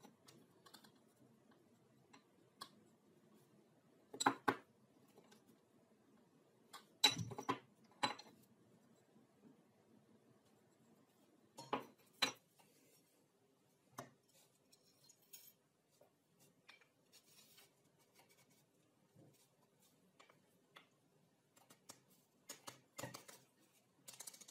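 Glass sharpening plates with sandpaper glued on are set down and knocked against one another on a wooden table: scattered sharp clinks and knocks, the loudest about 4, 7 and 12 seconds in. A few lighter clicks near the end come from a wooden block and steel rod being handled.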